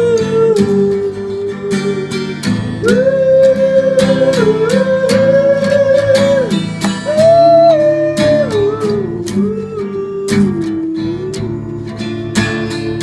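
Music: an acoustic guitar strumming chords under a single held melody line that slides smoothly from note to note, pausing briefly twice.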